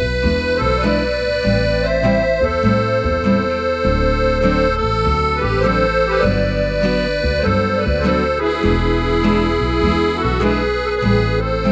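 Background music: an accordion-led tune with held melody notes over a steady, plucked rhythm accompaniment.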